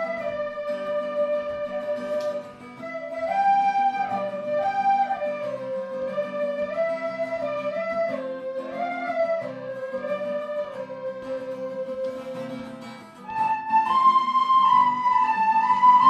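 Background music: a slow flute melody of held notes over a lower, soft accompaniment, the tune moving up to higher notes near the end.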